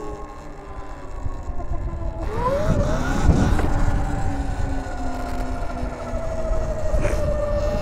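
Sur-Ron electric dirt bike's motor whining as it pulls away. The pitch rises over about a second, a couple of seconds in, then holds fairly steady, over a low rumble of wind and tyre noise.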